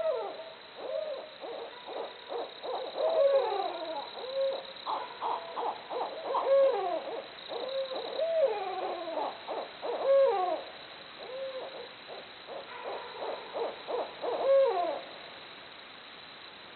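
Barred owls in a raucous group calling bout, the wild 'jungle' chorus: overlapping hoots with wavering calls that sweep up and down in pitch. The calling dies away about fifteen seconds in.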